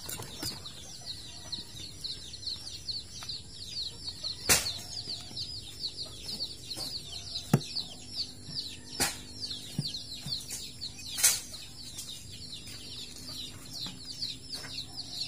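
A steady chorus of short, high, falling chirps, several a second, over a few sharp clicks and knocks from the knife work on the goat carcass; the loudest knocks come a little over four seconds in, about seven and a half seconds in, and near eleven seconds.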